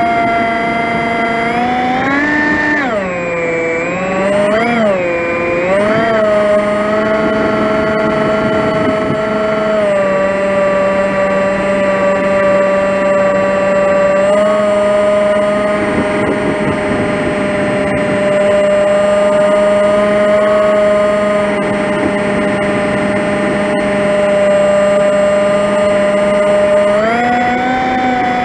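Electric motor and propeller of an FPV flying wing, heard close up through the onboard camera: a loud, steady whine with many harmonics. Its pitch dips and wobbles several times in the first six seconds as the throttle is worked, holds steady for about twenty seconds, then rises near the end.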